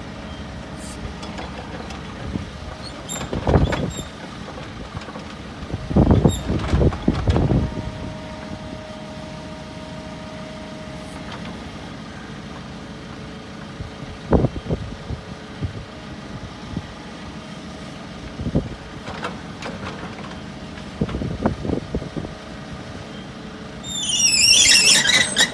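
Volvo EC140EL hydraulic excavator running with a steady hum. Several loud clunks and surges come from the machine as it works. Near the end comes a loud, high-pitched wavering screech.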